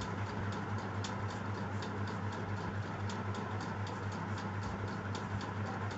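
Rapid, fairly even ticking, about four or five ticks a second, over a steady low hum.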